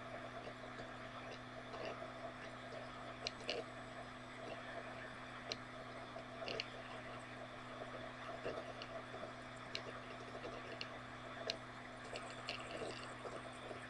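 Quiet room tone: a steady low hum with faint clicks scattered irregularly through it.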